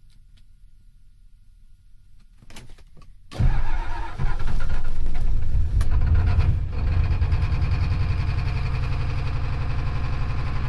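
1988 Ford F250's 7.3 IDI V8 diesel with a Banks turbo, cold-started after a glow-plug preheat: the starter cranks for about a second, and the engine catches about three and a half seconds in. It runs loudly on high idle for a few seconds, then settles a little lower.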